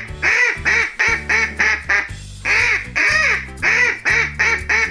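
Duck quacking over and over, in quick clusters of three or four quacks, over steady backing music.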